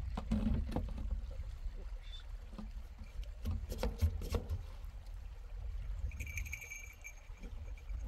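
Hand-operated plastic siphon pump worked up and down on a metal drum, filling a plastic can: clicking and knocking strokes with liquid splashing, over a low rumble. A short high squeak or whistle sounds about six seconds in.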